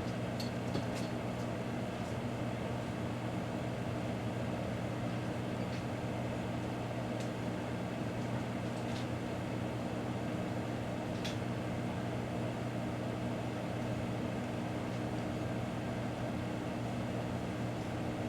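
Microwave oven running with a steady electrical hum and fan noise. A few faint clicks come in the first second and one about eleven seconds in.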